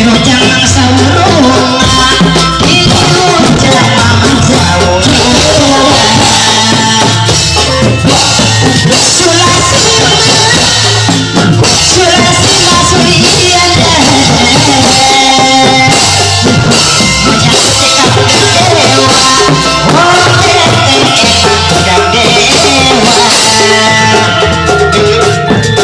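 Loud music with a singing voice and drums, playing steadily.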